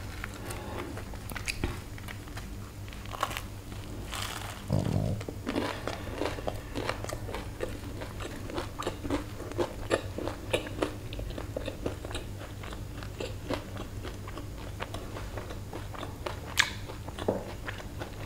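A person biting into and chewing a Burger King Cheese Meltdown burger with a crispy breaded patty and pickles. Steady crunching and chewing, full of small crisp clicks.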